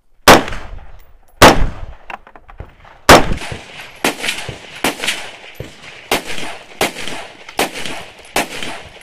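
Gunfire: three very loud single shots from an AR-style carbine, each a second or more apart, then a steady string of about eight quieter, more distant shots, less than a second apart.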